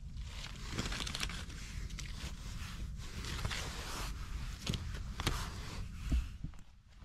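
Dry birch bark and twigs rustling and crinkling as they are handled at close range, with irregular light scrapes and clicks, over a low steady rumble.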